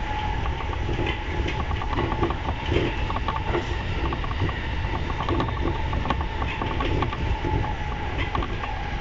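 E235 series electric train running on the line, heard from inside the car: a steady rumble of wheels on rails with many quick clicks and knocks, and a steady high tone.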